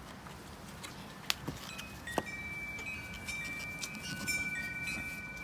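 Wind chimes ringing: a few light clicks, then from about two seconds in several clear tones at different pitches that sound one after another and hang on, overlapping.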